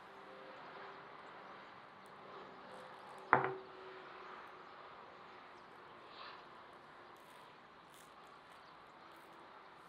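Faint background ambience with one sharp knock about a third of the way in, followed by a short ringing tail.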